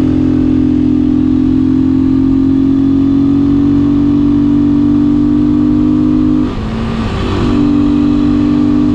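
Beta 500 RS single-cylinder four-stroke motorcycle engine running steadily, with a brief drop and wobble in its note about two-thirds of the way through before it settles back to the same even tone.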